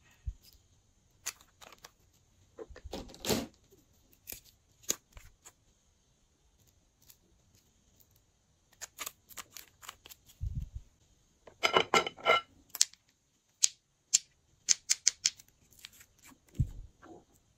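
Glass nail polish bottles and their screw caps being handled: scattered clicks and taps, with a quick run of rattling clicks about twelve seconds in and a couple of dull knocks.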